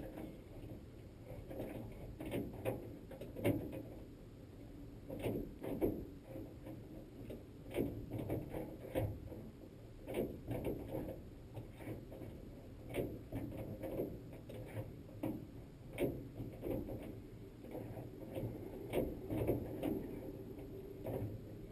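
Hand work with a metal tool on a steel window crank handle: a steady run of small, irregular metallic clicks and knocks, a few a second.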